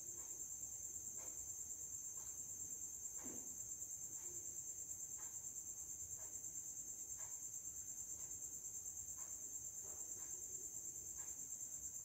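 Faint, steady high-pitched insect trill, finely pulsing, with soft faint clicks about once a second.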